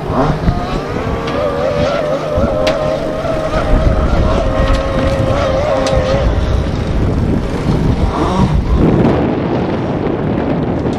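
Fuel-engined radio-controlled model speedboat running flat out, its engine a steady, slightly wavering high whine that fades about six seconds in, with wind rumbling on the microphone.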